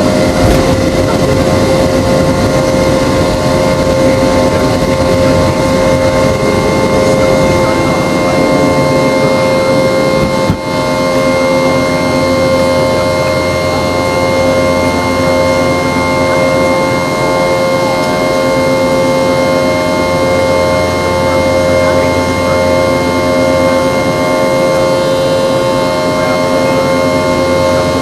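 Boeing 717-200's rear-mounted Rolls-Royce BR715 turbofans heard from inside the rear cabin: a steady hum with several steady whining tones over a rush of noise. A single brief click about ten and a half seconds in.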